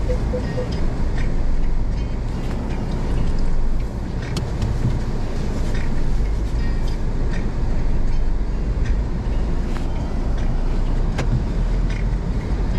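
Car interior noise: a steady low rumble of the engine and tyres while the car moves slowly, with a few light clicks. A quick run of short electronic beeps stops about half a second in.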